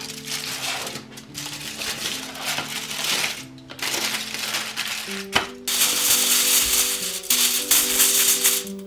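Aluminium foil crinkling and crumpling as it is folded and pressed down over a baking tray, much louder in the last few seconds, over background music.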